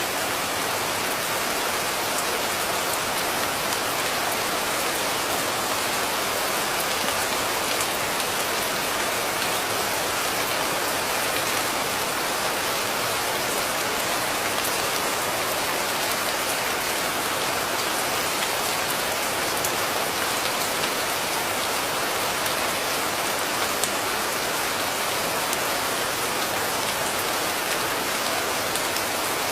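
Steady heavy rain: an even hiss of countless drops landing, unchanging throughout.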